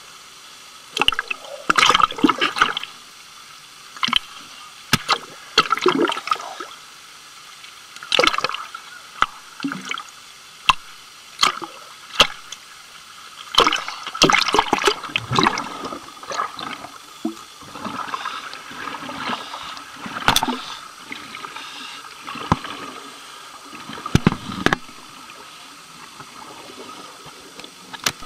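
Seawater sloshing and gurgling around a camera at the waterline, in irregular splashes. A denser run of splashing about halfway through comes as a diver jumps into the sea.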